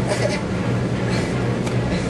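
A car's engine running, heard inside the cabin as a steady low hum under a constant rushing noise.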